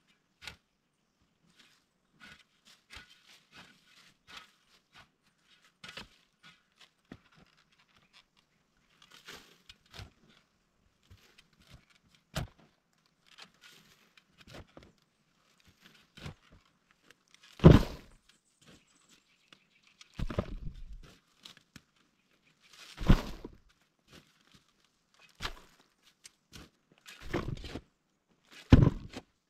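Digging out soil under a fallen tree stump: faint scattered scrapes and clicks, then from a little past halfway a series of heavy thuds and scraping strokes a few seconds apart.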